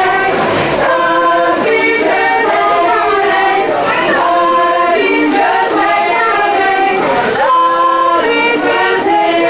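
Women's vocal group singing together, several voices at once in harmony.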